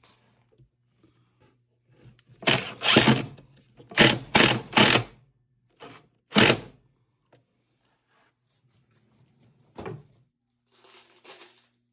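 A cordless drill runs into wood in several short bursts: pre-drilling or driving screws through a drawer front. A single sharp knock follows near the end.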